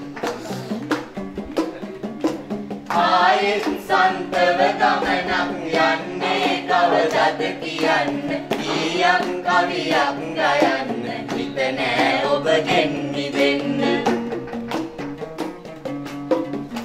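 Group of people singing a song together over acoustic guitar and a steady hand-drum beat. The voices come in about three seconds in and drop away near the end, leaving the guitar and drum.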